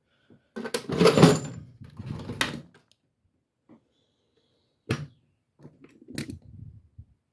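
Clattering and knocks of objects being handled: a rattling burst about a second in, a sharp knock about five seconds in, then a few softer bumps.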